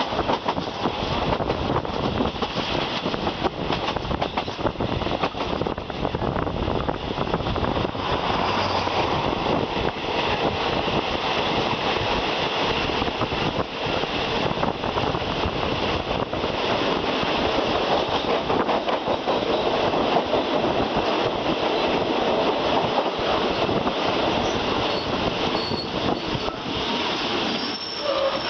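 Passenger train rolling through a station at low speed, its wheels clattering steadily over the rail joints. A thin, high wheel squeal comes in near the end.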